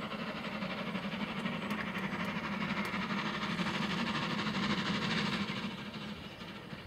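Steam locomotive approaching under steam, its exhaust chuffing, growing louder until about five seconds in and then easing off.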